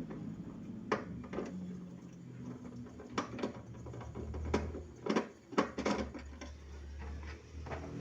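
Irregular clicks and knocks of tools and metal parts being handled during work on a refrigerator, bunched in two clusters, over a low steady hum.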